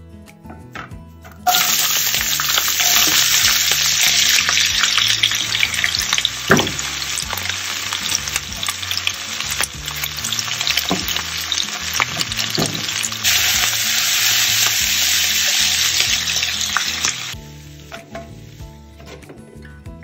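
Oil sizzling hard in a stainless steel pan as a tempering of seeds and dal and then sliced ivy gourd fry, stirred with a wooden spatula that knocks against the pan a few times. The sizzle starts suddenly about a second and a half in and cuts off suddenly a few seconds before the end, leaving soft background music.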